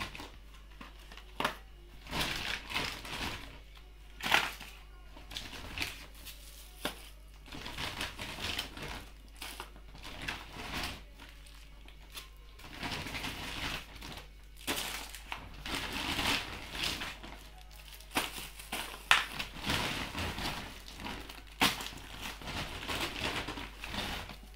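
Plastic grocery packets crinkling and rustling as they are handled and set down, with a few sharp knocks of packets and small cardboard boxes among them.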